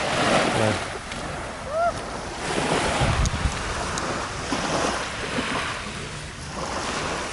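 Small waves washing and breaking on a sandy shore, rising and falling in surges, with wind buffeting the microphone.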